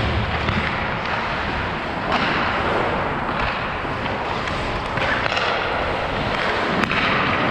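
Hockey skates scraping and carving on rink ice during play, a steady scratchy hiss, with a few sharp knocks from sticks and puck, one near the end.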